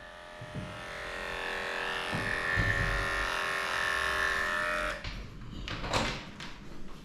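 Cordless electric dog clipper running steadily as it shaves through a dog's coat, then switched off about five seconds in. Handling clicks and a knock follow.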